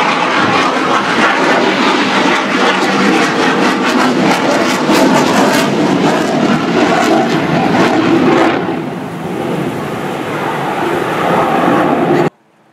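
Airplane engine noise, loud and steady, easing off after about eight seconds and cutting off abruptly near the end.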